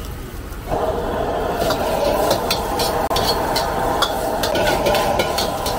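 Noodles and vegetables stir-fried in a wok over a gas burner: a steady frying roar swells about a second in, with the metal ladle clicking and scraping against the wok in quick strokes.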